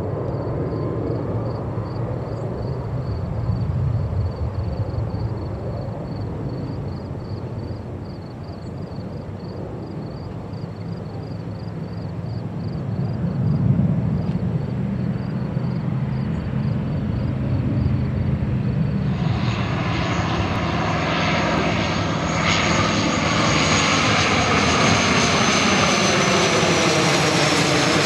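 Airbus A330-300 twin-jet climbing away after takeoff, a steady distant jet rumble. About two-thirds through it gives way to a De Havilland Canada Dash 8-400 turboprop on final approach passing low overhead: propeller and engine noise growing loud, with a sweeping, phasing quality as it goes over.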